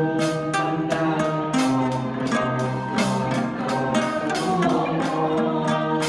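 Small Thai classical ensemble playing: a steady stream of quick struck, ringing notes over held lower tones.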